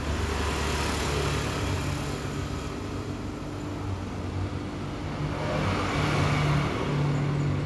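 Steady low mechanical hum of a running engine, with a rushing noise that swells about a second in and again around six seconds.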